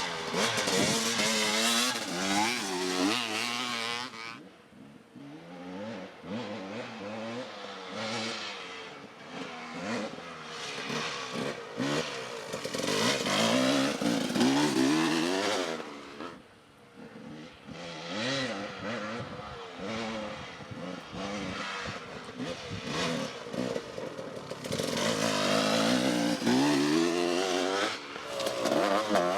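Off-road vehicle engines running hard, the pitch climbing and falling over and over as they rev. The sound drops away briefly twice, about a third of the way in and again past the middle.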